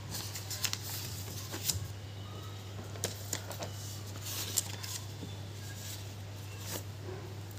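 Paper notebook pages being handled and turned: faint, scattered rustles and taps over a steady low hum.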